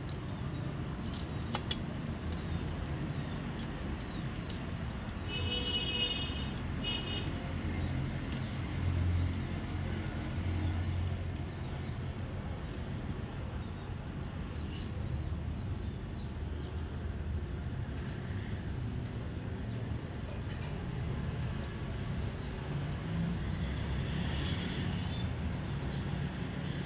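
Steady low rumble of background road traffic, with a few short high-pitched beeps about five to seven seconds in.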